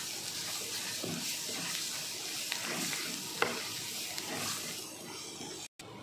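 Chopped spinach sizzling in hot oil in a stainless steel pan, stirred and scraped with a wooden spoon as it is sautéed. There is a sharper knock of the spoon about three and a half seconds in, and the sizzle drops quieter after a brief break near the end.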